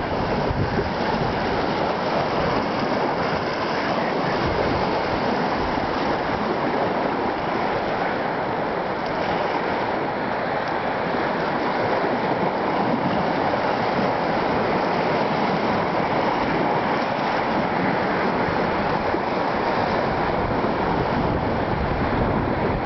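Choppy lake waves splashing against the rock embankment of a breakwater, with steady wind buffeting the microphone.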